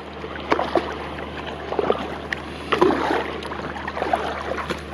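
Kayak paddling: the double-bladed paddle dipping and pulling through the water with splashes, drips and a few sharp clicks.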